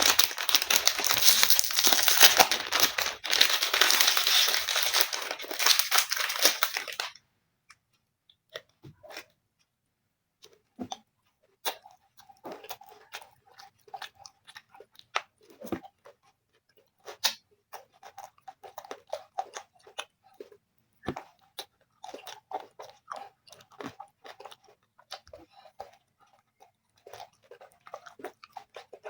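Close-miked eating of a crunchy chocolate-coated ice cream: crunching bites, chewing and mouth clicks. The first seven seconds are a loud, dense crackling that stops abruptly, followed by quieter, scattered crunches and chews.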